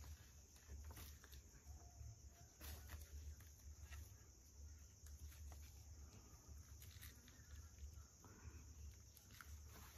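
Near silence with faint, scattered taps and scuffs of a wooden walking stick and rubber sandals on rock and dry leaves during a slow, careful descent.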